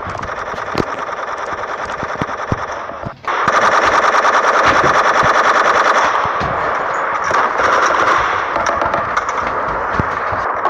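Machine-gun fire sound effect: a long, fast, even rattle of shots that breaks off for a moment about three seconds in, then resumes louder.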